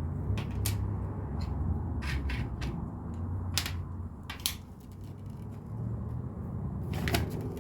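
Small plastic LEGO pieces clicking and clattering as they are picked out and handled: a run of sharp, separate clicks, with a cluster near the end, over a low steady rumble.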